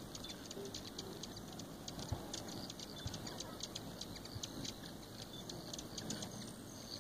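Many hummingbirds at busy feeders, making a dense, irregular, high-pitched ticking and chittering.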